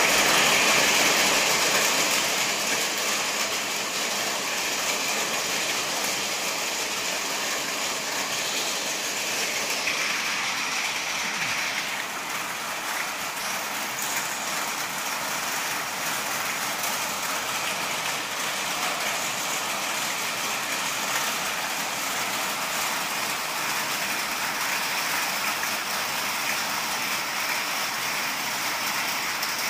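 Steady monsoon rain falling, an even, continuous hiss that is a little louder in the first few seconds and then holds level.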